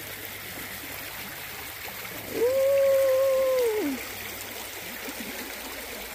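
Shallow stream flowing and trickling around a plank footbridge. About two and a half seconds in, a single held tone lasts about a second and a half, louder than the water, and slides down in pitch as it ends.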